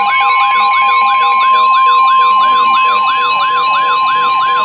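NOAA Weather Radio's steady 1050 Hz warning alarm tone, which signals that a warning broadcast follows, overlapped by weather radios' own alarms: a fast up-and-down siren-like sweep about three times a second and intermittent beeping tones.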